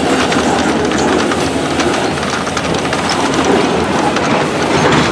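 Loaded freight train of covered hopper cars rolling past at close range: a loud, steady rumble of steel wheels on rail, with many quick clicks and knocks as the wheels pass over the rail joints.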